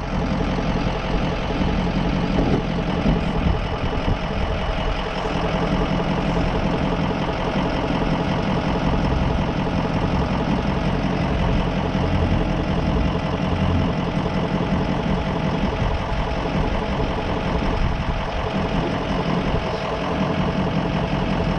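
Ford E350 Sportsmobile van's engine running steadily at low speed as the van creeps downhill on a rough four-wheel-drive trail.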